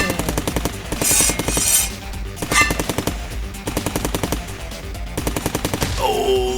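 Bursts of rapid-fire shots, several quick runs of sharp cracks, over a steady music track.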